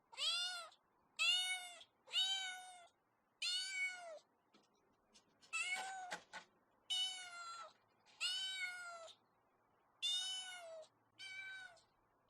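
A cat meowing over and over: nine short, high meows, each rising and then falling in pitch, about one a second with brief pauses between. A few sharp clicks sound about midway.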